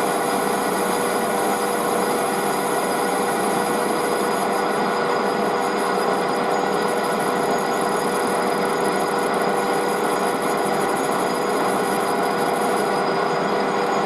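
Metal lathe running steadily, turning a part down to size so that it fits, with a constant machine hum.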